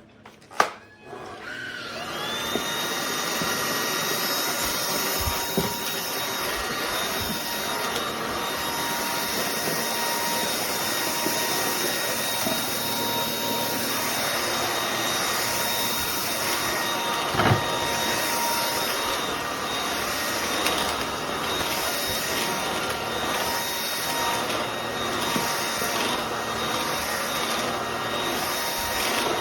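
Lubluelu cordless stick vacuum switched on with a click and its high-speed motor spinning up over about two seconds, rising into a steady high whine over a rush of air. It then runs steadily, with one knock about two-thirds of the way through.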